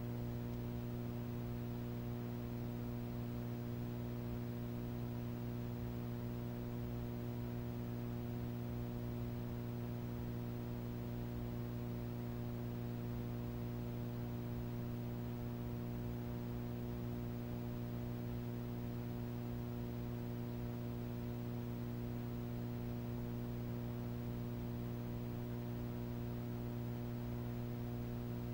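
Steady electrical hum with a stack of evenly spaced overtones over a light hiss, unchanging throughout: the sound of a blank, black stretch of a home videotape transfer with no programme audio.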